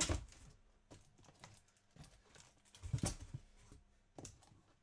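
Cardboard boxes of trading cards being lifted off a stack and set down. There are soft thumps at the start, about three seconds in and near the end, with light taps and clicks of cardboard between them.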